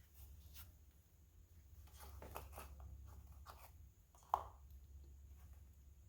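Faint clicks and taps of small metal parts being handled, with one sharper click that rings briefly about four seconds in, over a low steady hum.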